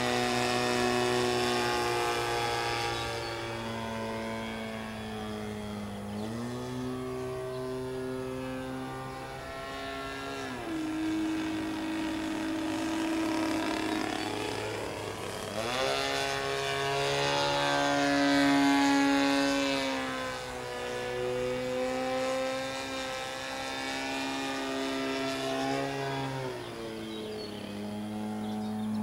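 DLE20 single-cylinder two-stroke gasoline engine of a quarter-scale RC Yak 54 in flight, its propeller note stepping down and up in pitch several times as the throttle is worked, with a sharp rise about sixteen seconds in and the loudest pass a few seconds later.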